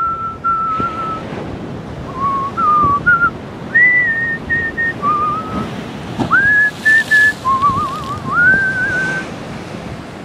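A person whistling a tune: single clear notes that step, slide and waver, over the wash of sea waves and wind.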